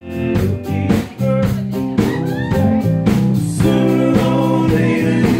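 Live blues band playing: electric guitars over a steady drum beat, with a voice singing.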